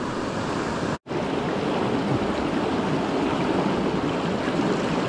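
Rocky mountain river rushing steadily around the feet of someone wading, heard close up; the sound cuts out completely for a split second about a second in.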